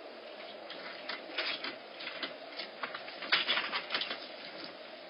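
Bobcat kittens scampering on a wooden deck: irregular clicking and tapping of paws and claws, busiest about a second and a half in and again around three and a half seconds in, over a steady background hum.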